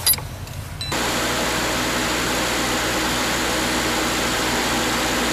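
A brief metallic clink of chain links being handled. About a second in, a steady loud rushing noise with a low hum takes over: an engine running.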